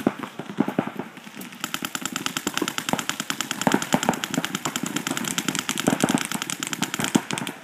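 Paintball markers firing rapidly in a speedball game: a fast rattle of sharp shots, many a second, that thickens into a steady stream about one and a half seconds in.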